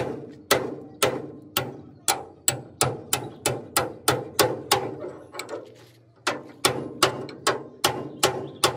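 A club hammer striking a steel drift held against a leaf spring's shackle pin on a tractor trolley, metal on metal, about three blows a second with a short ring after each. There is a brief pause about six seconds in, then the blows resume.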